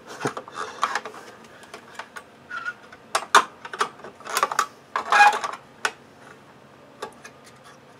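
Irregular clicks, knocks and scrapes of hard plastic against metal as a black plastic cover is worked into place inside a Dell PowerEdge R210 server's open metal chassis, a part that would not seat because it was fitted backwards. The loudest knock comes a little past three seconds in, and a short rattle about five seconds in.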